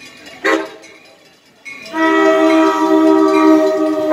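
Amtrak Pacific Surfliner train's air horn sounding its chord at a road crossing: a short blast about half a second in, then a long, loud blast starting a little before halfway and still held at the end. This is the short-then-long close of the crossing warning signal.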